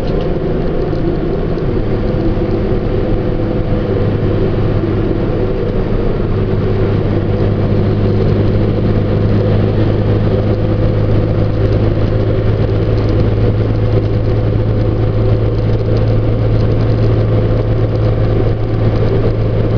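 Truck engine running at a steady speed, heard inside the cab as an even hum with road noise.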